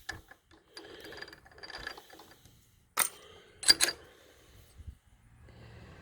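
Metal workshop handling sounds: quiet rustling and shuffling, with a sharp metallic clink about three seconds in and two more in quick succession just before four seconds, as a drill bit and metal tools are handled.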